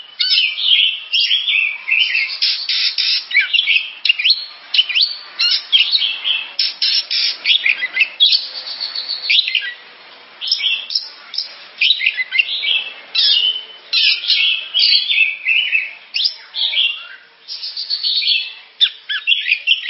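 Oriental magpie-robin (kacer) singing: a fast, varied run of high whistled and scratchy phrases, with a short lull a little before the middle.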